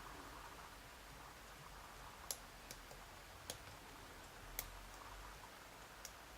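Faint, scattered clicks of a lock pick working the pins of an Abus E60 padlock cylinder, about five in all. Under very light tension these clicks could be pins setting or pins being let out.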